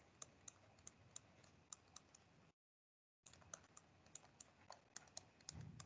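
Faint, irregular clicking and tapping of a pen input device being written with, several clicks a second, the sound cutting out completely for under a second midway.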